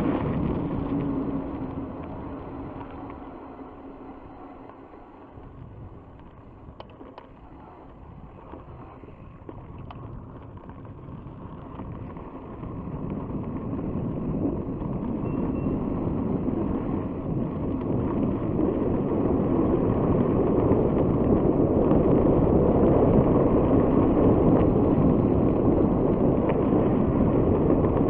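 Wind rushing over the microphone and mountain-bike tyres rumbling on a gravel path. The sound is quieter for the first several seconds, then grows loud and stays loud as the bike picks up speed.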